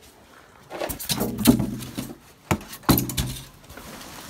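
Rummaging among bags and cardboard boxes in a dumpster: a few sharp knocks of objects being moved, and two short, low, steady hums about a second long each.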